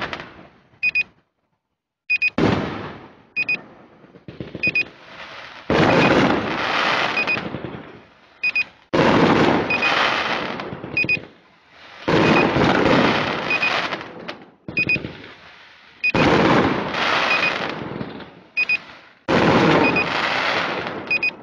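Fireworks going off in a string of about eight bursts, each a sudden bang with crackle that fades over a second or two. Short high beeps recur between them.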